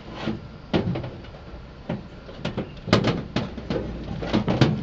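Irregular light clicks and knocks of hands and a screwdriver working on a plastic RC truck chassis, a sharp tap every half second or so.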